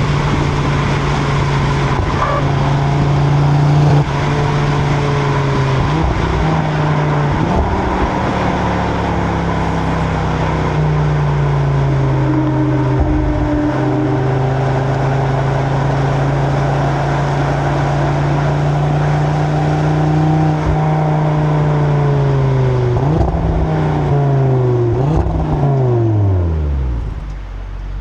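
Audi RS3's turbocharged 2.5-litre five-cylinder running through its stock exhaust, heard from the rear of the car at a steady cruise with tyre and wind noise. Near the end the engine note falls away in a few steps and gets a little quieter as the car slows.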